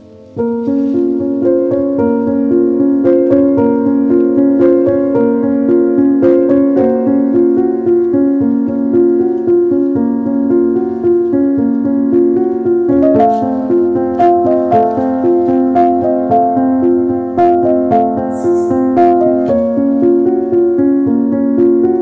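Background piano music playing a steady run of notes, louder from about half a second in.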